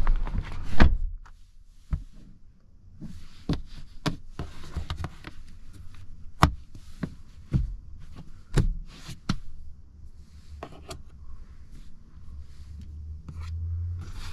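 Rear door of a Volvo XC40 Recharge shutting with a thud about a second in. It is followed by scattered clicks and knocks of handling inside the closed cabin, with a low hum rising near the end.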